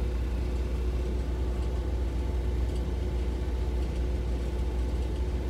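Truck engine idling: a steady low rumble with a faint, steady hum above it.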